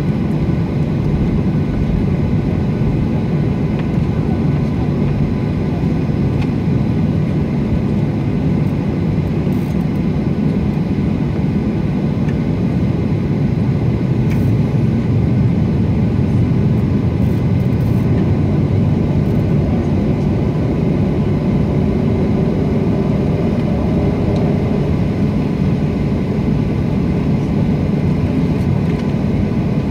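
Cabin noise of a jet airliner taxiing: a steady low rumble from the engines at taxi power and the wheels rolling on the taxiway, with a faint rising whine about two-thirds of the way through.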